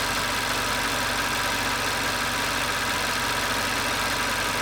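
Car engine idling steadily, a constant even hum and hiss with no change.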